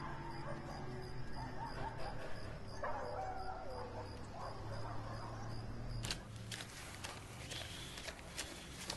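A dog whining several times over a low steady hum. About six seconds in this gives way to the crisp rustling and flicking of banknotes being counted by hand.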